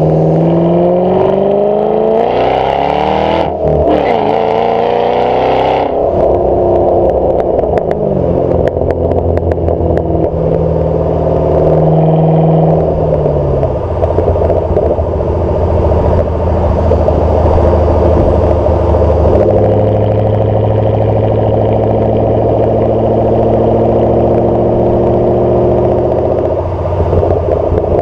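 2008 Ford Mustang GT's 4.6-litre V8 exhaust through newly fitted GT500KR/FR500S mufflers, heard close at the tailpipe while driving. Pitch rises under acceleration, breaks for a gear change a few seconds in and climbs again, then settles into a steady cruising drone.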